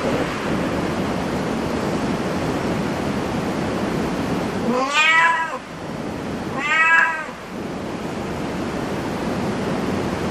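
Domestic cat meowing twice, about two seconds apart, each meow rising and then falling in pitch, over a steady background hiss.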